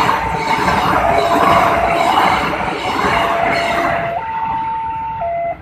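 A passenger train's coaches rush past at a level crossing, the wheel noise swelling about once a second. Under it a level-crossing warning alarm alternates between two notes, each held about a second. The train noise falls away about four seconds in, leaving the two-note alarm, which stops abruptly near the end.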